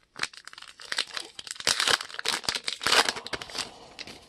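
Plastic wrapper of a baseball card pack crinkling and tearing as it is opened: a dense run of crisp crackles, loudest in the middle, that dies away near the end.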